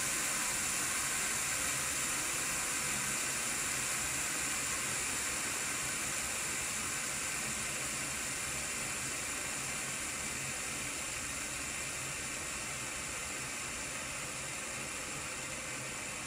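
Three 608 skateboard-style bearings spinning freely in Yardwerx Dab fidget spinners (a copper Dab with a 6-ball Bones Swiss bearing, a brass Dab with a Gold Line hybrid ceramic bearing and a steel Dab with a high-speed bearing), making a steady whir and hiss. The sound slowly fades as the spinners lose speed.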